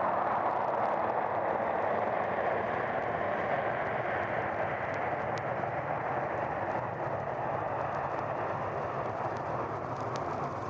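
Boeing 707 jet airliner landing: a steady jet roar that slowly fades, with a few faint clicks of vinyl crackle.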